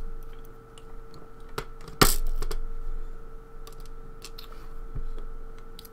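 Small metal clicks and ticks of tweezers working lock pins and springs out of a pin-tumbler lock cylinder, with one sharp click about two seconds in.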